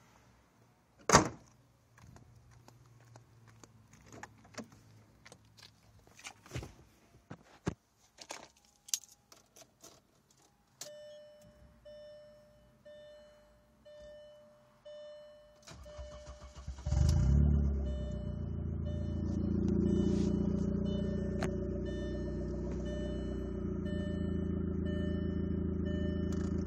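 Audi 1.8T turbo four-cylinder engine with no muffler, on a Megasquirt standalone ECU, cranked briefly and catching about two-thirds of the way in, then idling steadily with a loud, deep exhaust note that swells a little and settles. Before it, a loud thump about a second in, scattered clicks and knocks, and a faint steady high whine.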